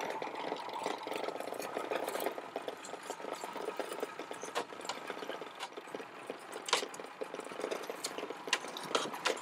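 Wet crab-pot rope being hauled hand over hand over the side of an aluminium tinny, with a steady fast rattle throughout and a few sharp knocks in the second half.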